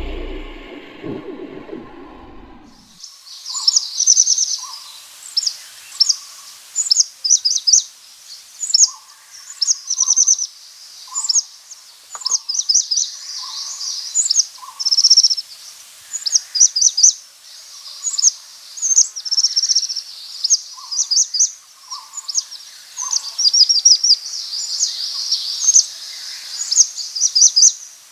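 Sparrows chirping and twittering in quick, busy runs of high notes, with lower short calls now and then. A low rumble fades out over the first few seconds.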